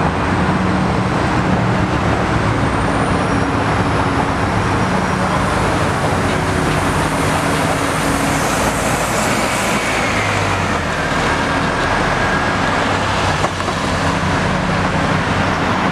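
Steady road traffic noise, with engines and tyres, as cars and a 2002 NABI 40LFW transit bus drive past.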